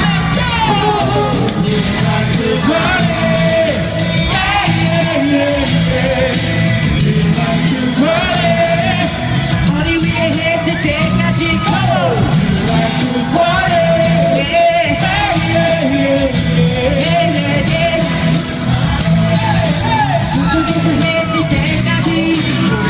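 Live amplified pop music with a steady beat, with singing and crowd screams over it, echoing in a large hall.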